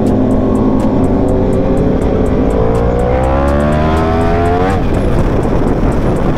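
Sportbike engine accelerating hard: its pitch climbs steadily for about three seconds, then drops sharply close to five seconds in at an upshift. Heavy wind noise runs under it.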